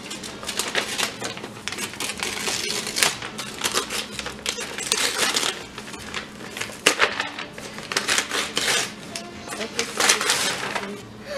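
Gift wrapping paper being ripped and crumpled by hand off a boxed toy: an irregular run of tearing and crinkling with short pauses between pulls.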